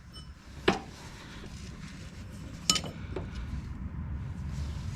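Metal parts and tools clinking against the planter's closing-wheel assembly while springs are fitted: two sharp clinks, one under a second in and one near three seconds in, over a low steady rumble.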